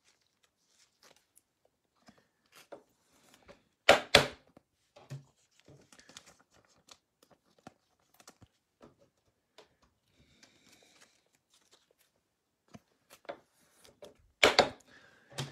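Trading card packaging torn open by hand, with two loud short rips about four seconds in and near the end. Between them come light rustling, crinkling and small clicks of the cards and wrapper being handled.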